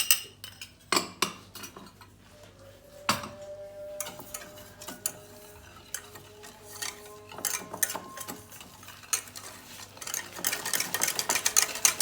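Utensils clinking and knocking against a mixing bowl as ingredients for pastry cream go in, then eggs being beaten with cornstarch and sugar in the bowl, with quick, rapid clicking strokes near the end.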